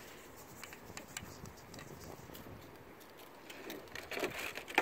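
Faint light clicks and rustling of a thin plastic wiper-blade protector strip being handled and pressed against a car door's edge, with a cluster of louder clicks near the end.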